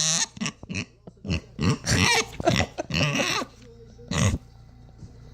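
Pet pig giving a series of short grunts and squealing calls while begging for a chip, the loudest about two and three seconds in.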